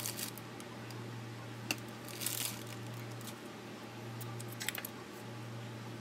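A few small sharp clicks and a brief rustle from handling a plastic single-serve coffee maker while it is set up with a pod, over a low steady hum.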